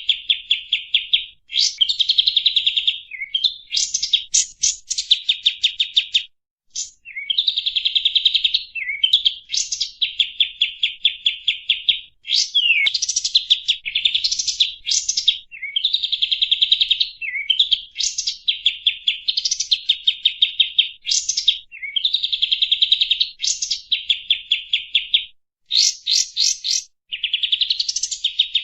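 Kapas tembak bulbul singing: rapid, chattering trills about a second or two long, often ending in an upward sweep, repeated over and over with short pauses. This is the bird's song as used for lure recordings.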